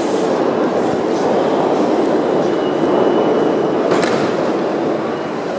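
Tehran Metro train running: a steady rumble of the carriage on the rails, with a single click about four seconds in.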